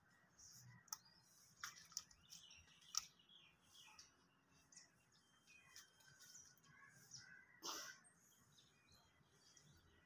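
Alexandrine parakeet making faint, scattered chirps and clicks, with one louder short call near the end.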